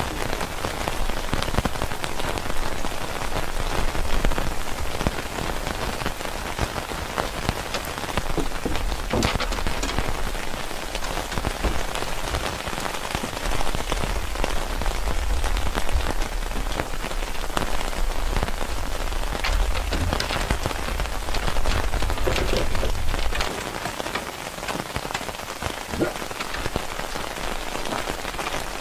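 Steady rain falling, with many separate drop hits ticking through the hiss.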